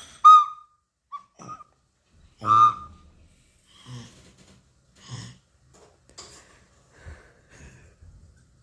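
Short whistle-like chirps, each dropping quickly in pitch, repeated several times, with fainter squeaks and breathy sounds between.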